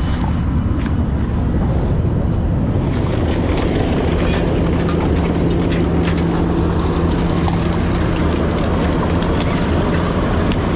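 Heavy vehicle engine running steadily, with a constant low hum and scattered metallic clanks and rattles over it.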